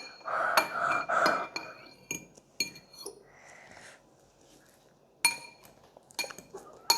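Metal fork clinking and scraping against a bowl while mashing banana. Sharp clinks come irregularly, some ringing briefly, with a short lull about four seconds in.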